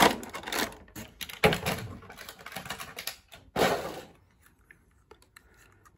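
Small diecast toy cars clicking and clattering as they are picked up and handled, with a few sharper knocks among the clicks over the first four seconds.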